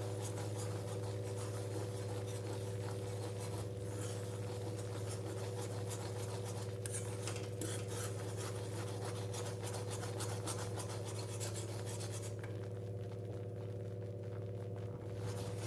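Hand whisk scratching and scraping against a pan as it stirs butter and flour into a roux, the scraping easing off for a few seconds near the end. Under it is a steady low hum.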